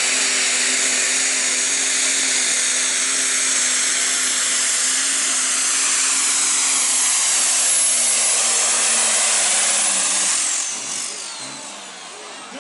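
A New Holland pulling tractor's engine running flat out under load as it pulls the sled, a loud high whine over a steady engine note. About ten seconds in it lets off: the whine falls away in pitch and the sound drops.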